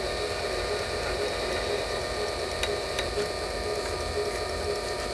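Small lathe running steadily with a constant hum, with two faint ticks in the middle.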